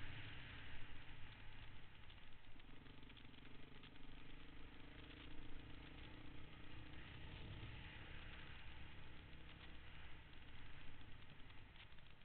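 Honda dirt bike engine running at a steady, fairly even pitch while riding a dirt trail, faint and muffled, with wind hiss and small rattles over the camera microphone.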